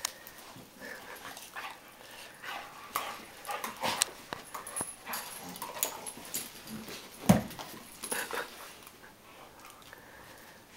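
A Weimaraner and a Vizsla play-fighting: irregular scuffling and short dog vocal sounds, with one loud thump a little past seven seconds in.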